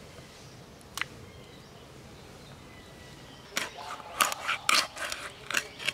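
Raw duck pieces being cut on a boti blade: a quiet stretch with one click, then a quick irregular run of sharp crunches and cracks in the second half as the blade goes through skin and bone.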